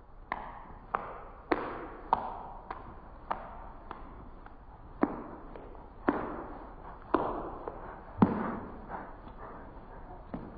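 A steady rhythm of sharp percussive hits, a little under two a second, each with a short ringing tail; one hit near the eight-second mark is the loudest.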